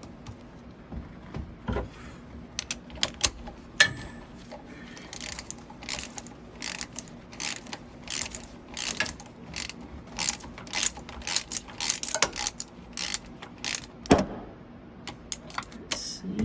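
Ratchet wrench clicking in quick repeated strokes as it backs out intake manifold bolts; the clicks come in dense runs through the middle, with a few sharper knocks of metal on metal.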